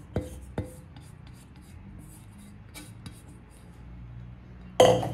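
Kitchen utensils knocking and scraping against a stainless steel mesh sieve while thin flour-and-water batter is poured and scraped through it: two sharp clicks about half a second apart near the start, a few faint ticks, then a brief loud scrape near the end, the loudest sound.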